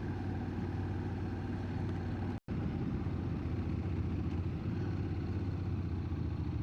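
Motorcycle engine running at a steady cruise with a hiss of wind and road noise. The sound cuts out completely for an instant about two and a half seconds in.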